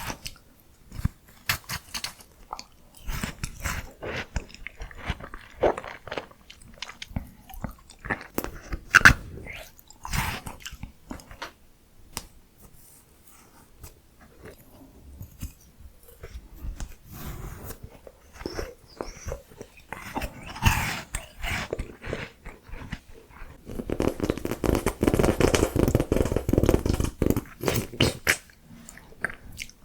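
Close-miked eating sounds: biting into and chewing crunchy miniature ice cream, with scattered crisp crackles and a denser, louder stretch of crunching near the end.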